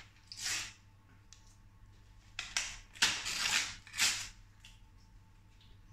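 Paper envelope being torn open and rustled in several short ripping bursts, the longest about three seconds in.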